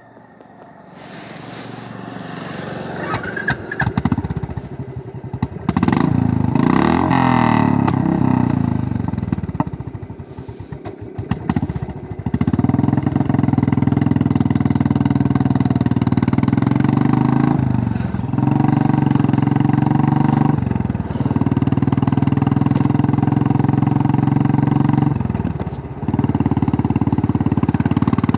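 Royal Enfield Classic 350's single-cylinder engine and exhaust, ridden with the pitch rising and falling for the first twelve seconds. It then pulls steadily and loud, with the engine note dropping briefly three times.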